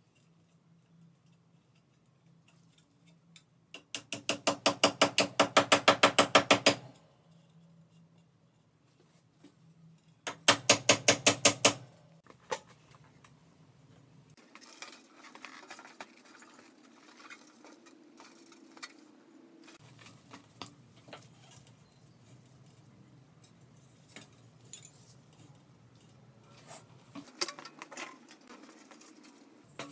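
A handheld power tool runs in two short bursts with a fast, even pulsing, about 4 seconds in and again about 10 seconds in, the loudest sounds here. Afterwards light metallic clinks and rattles of small parts being handled.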